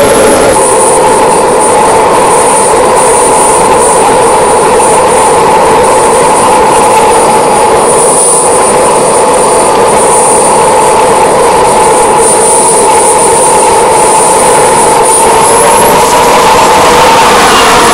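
Model jet turbine engine of a large RC scale jet running steadily at ground idle with a loud, high whine that dips slightly near the end.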